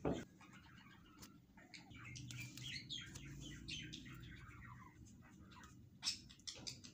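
Small birds chirping in the background, a busy run of short chirps over a steady low hum, with a sharp knock at the start and another click about six seconds in.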